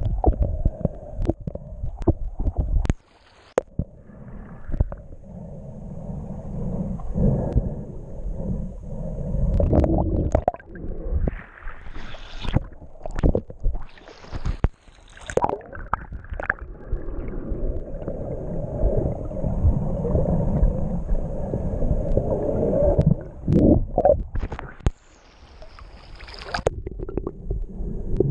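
Muffled underwater rumble and water sloshing against a submerged camera housing, with bursts of splashing as the camera breaks the surface and goes back under.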